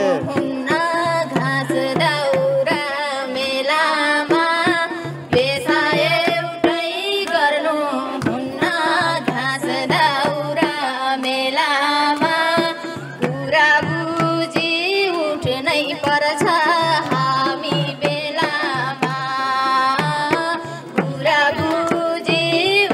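A woman singing a Nepali song over a madal hand drum beating a steady rhythm.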